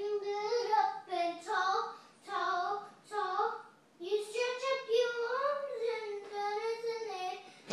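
A young girl singing unaccompanied: several short sung phrases, then one long wavering held note from about four seconds in.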